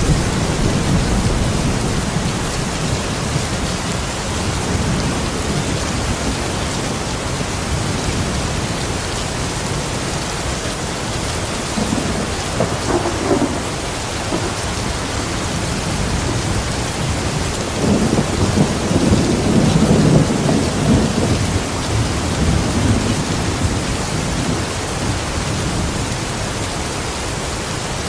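Steady heavy rain with rolling thunder: a low rumble about halfway through and a longer, louder roll a little later.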